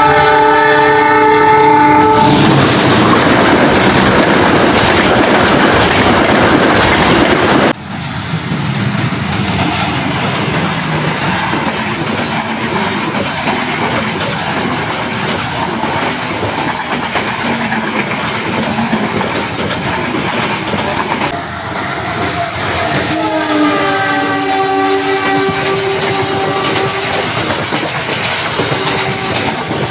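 A train horn sounds a multi-note chord, then a train passes close with loud wheel and rail noise. After a sudden cut, train noise rumbles on steadily, and the horn sounds again for several seconds near the end.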